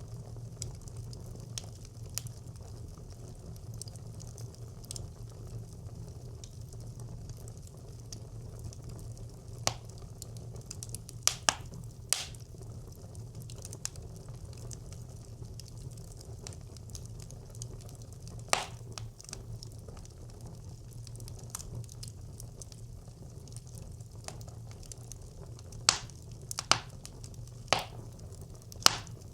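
Fire burning in a traditional Nordic brick clay stove: a steady low rumble with scattered sharp crackles and pops, a few loud ones about a third of the way in and a quick run of them near the end.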